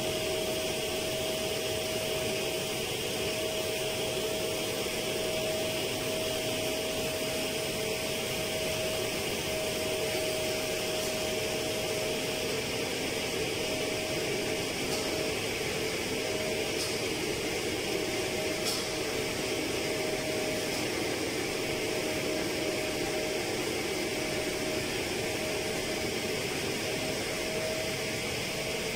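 Steady drone of running plant machinery with a constant mid-pitched whine over an even hiss, and a few faint clicks around the middle.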